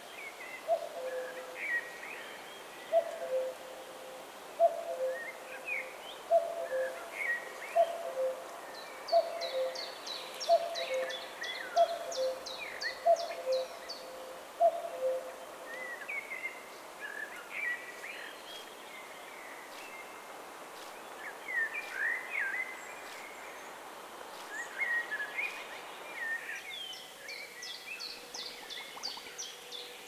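Wild birds singing: several songbirds give short whistled phrases and high rapid trills. Through the first half, a low two-note call repeats about ten times at an even pace.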